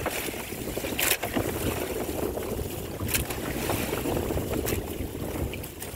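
Wind and sea washing around a small outrigger fishing boat, a steady rushing with low rumble, broken by a few brief sharp knocks or slaps.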